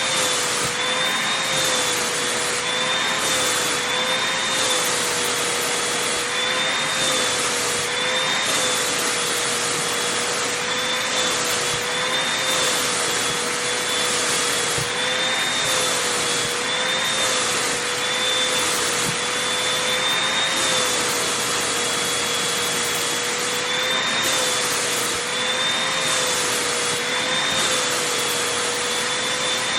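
Vacuum cleaner running continuously while drawn over fabric: a steady motor whine that dips slightly in pitch every second or two, with the hiss of the airflow swelling and fading in a regular back-and-forth rhythm.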